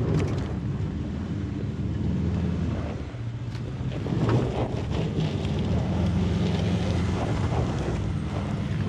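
Pickup truck engine running under throttle on a steep dirt climb, with scattered short knocks from the traction-control brakes pulsating as they grab the spinning wheels.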